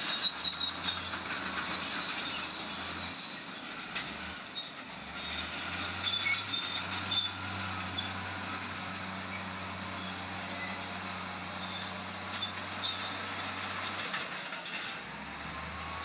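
Crawler bulldozer working: its diesel engine runs steadily while its steel tracks give short, high metallic squeals and clanks.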